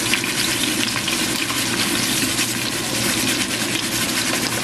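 Flour-coated chicken sizzling in hot oil in a pot, a dense, steady crackle, as a fresh piece is lowered in.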